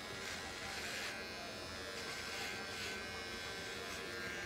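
Electric pet hair clippers running with a steady buzzing hum, trimming the hair at the opening of a dog's ear canal.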